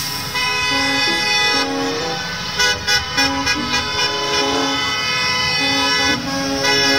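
Several school bus horns honking at once, overlapping steady blasts on different notes, with a run of short toots a little before the middle.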